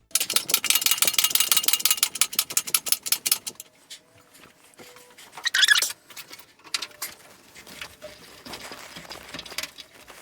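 Hand tools working on metal: a fast run of clicks, about ten a second for some three and a half seconds, then a short scraping rasp and a few scattered clicks and knocks.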